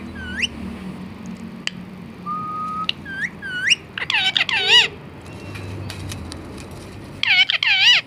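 Indian ringneck parakeet whistling: several short rising whistles and one held note, then louder, rapidly wavering calls about four seconds in and again near the end.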